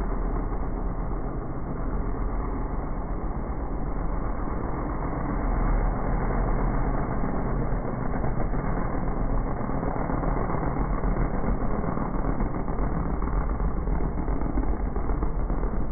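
Mud-bog truck's engine running hard as it churns through a mud pit, slowed down with the slow-motion footage to a dull, steady rumble with no clear pitch. It gets a little louder about six seconds in.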